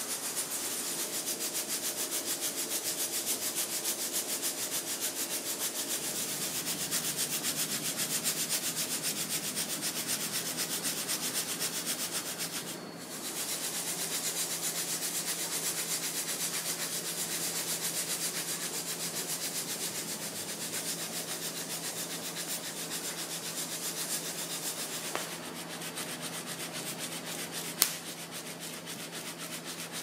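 Coffee beans rattling and rustling in a wire mesh strainer, shaken fast and steadily over a gas stove flame while they roast. One sharp click near the end.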